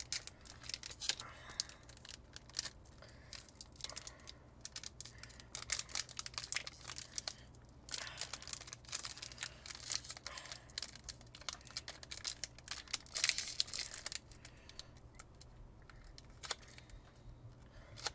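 Foil wrapper of a trading-card booster pack crinkling and being torn open: irregular crackling and rustling with several louder rips.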